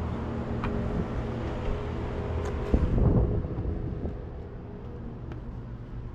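A vehicle engine running steadily, with a brief louder surge about three seconds in, after which the sound drops quieter.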